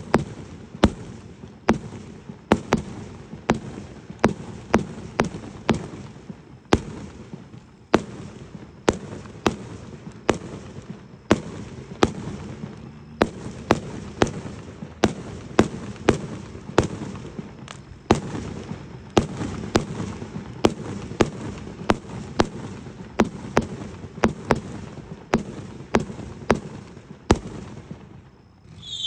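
Aerial fireworks going off in a long, rapid series of sharp bangs, about one to two a second, with a noisy haze between them. The bangs stop shortly before the end.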